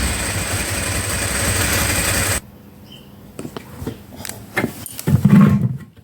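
Ducati 749 V-twin engine running, then shut off abruptly about two and a half seconds in. After it stops, scattered clicks and knocks of handling follow, with a short low thump near the end.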